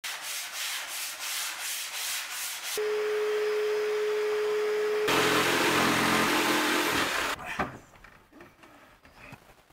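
Sandpaper rubbed by hand over plywood, in even strokes about three a second, cuts to a vacuum cleaner running with a steady hum and whine. About five seconds in a louder rushing noise takes over for about two seconds, followed by a few faint knocks.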